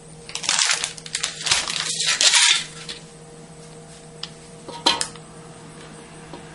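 Thin plastic bag crinkling and rustling for about two seconds, then a single sharp tap just before five seconds in, over a faint steady hum.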